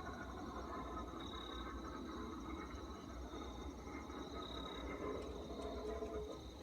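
Night insects, crickets, trilling steadily in a high tone, over a low steady rumble.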